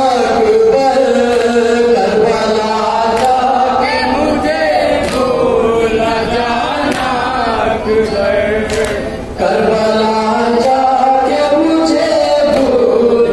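A man chanting an Urdu noha (Muharram lament) into a microphone in long, held melodic lines, with a few sharp slaps now and then.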